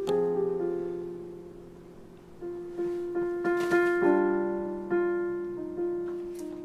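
Slow, quiet piano music: single notes and chords struck one after another and left to ring and fade, with a couple of faint clicks about halfway through.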